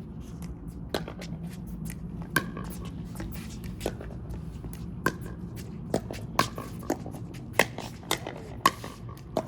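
Pickleball paddles striking a plastic pickleball during a rally: a string of sharp, hollow pocks at irregular spacing, several a second at times, with the loudest hits in the second half.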